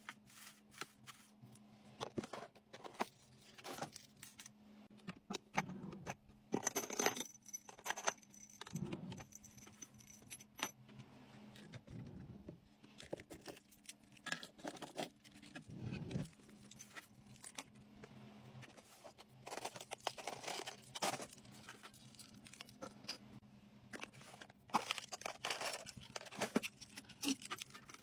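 Metal key rings and plastic self-defense keychains jangling and clicking as they are handled and set into a small plastic case, in scattered irregular clatters with brief rustles of shredded paper filler.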